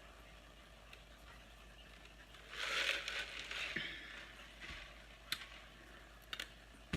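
Faint rustling and crinkling for about a second and a half, a third of the way in, followed by a few light clicks.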